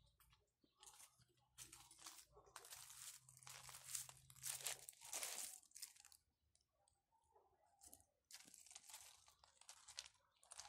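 Footsteps crunching on loose gravel, about two a second, stopping for a couple of seconds in the middle and then starting again.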